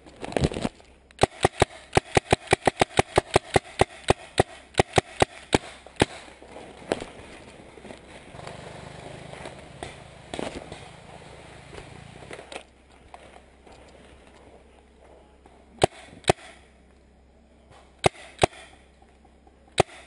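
Magazine-fed paintball marker firing close by: a rapid string of about two dozen shots at roughly five a second, then single shots spread out, with two quick pairs near the end.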